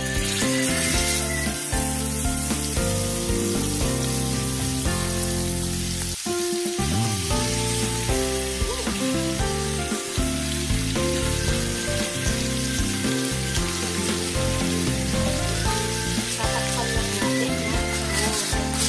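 Ribeye steaks sizzling as they fry in hot butter and coconut oil in a cast iron skillet, the sizzle starting as the first steak goes into the pan. Background music plays throughout.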